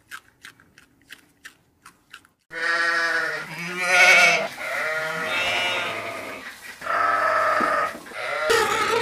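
A few faint clicks, then, from about two and a half seconds in, a series of long, bleat-like animal calls that break off and start again.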